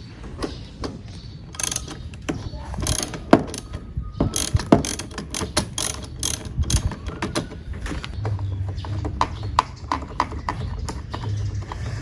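Hand ratchet wrench clicking in short irregular runs, with metal clinks, as it turns a nut on a car battery terminal.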